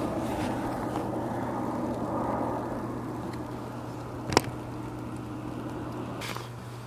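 Distant road traffic, a steady low rumble, with one sharp click a little over four seconds in.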